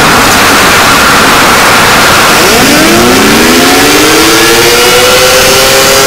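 Very loud, distorted static noise of a mock emergency-alert alarm. About two and a half seconds in, a siren starts winding up under the static, its pitch rising and then levelling off into a steady held tone.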